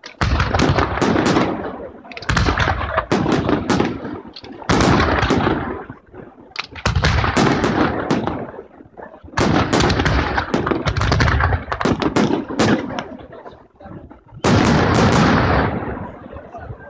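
Bolognese-style aerial fireworks barrage: volleys of rapid shell bursts, sharp cracks over a booming rumble, come in clusters of a second or two with short lulls between, about seven volleys in all.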